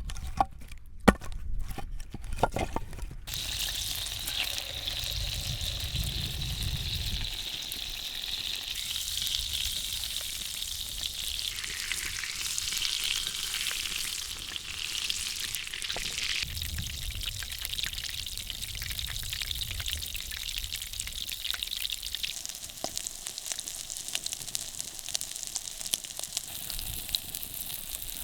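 A few sharp clicks in the first three seconds, then food frying in a pan with a steady sizzle.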